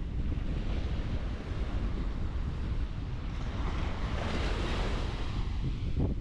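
Wind buffeting the microphone with a steady low rumble, over surf: a wave breaks and washes in, swelling about halfway through and dying away near the end.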